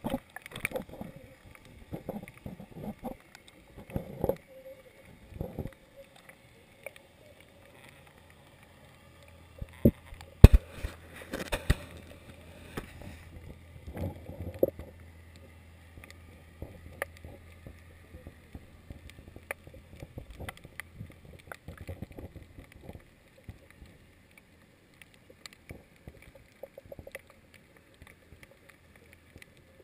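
Muffled underwater knocking and clicking heard through a GoPro HD Hero 2's waterproof housing hung off a dock. There are a few loud thumps about ten to twelve seconds in, and a low steady hum underneath for a while after that.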